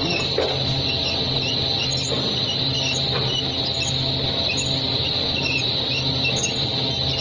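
Food extruder running steadily: a continuous motor hum with a high whine, with scattered faint high squeaks on top.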